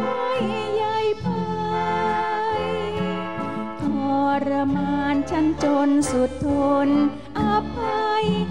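A woman singing a Thai song into a microphone, backed by a live band with saxophones and conga drums.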